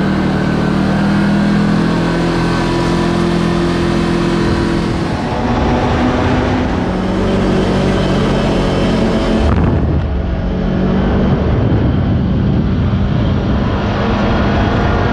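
Kawasaki KRX4 1000 side-by-side's parallel-twin engine running steadily under way on a dirt trail, with drivetrain and tyre noise. About nine and a half seconds in the sound shifts to a heavier, rougher rumble.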